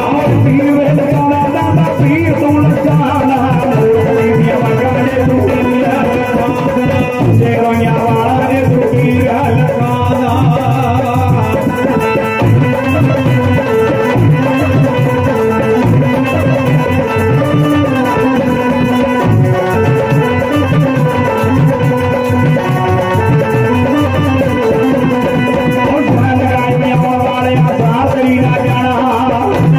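Live Punjabi folk devotional music, a steady instrumental passage between sung verses: hand drums keep a driving rhythm under held notes from a keyboard instrument, with hand-held clapper percussion.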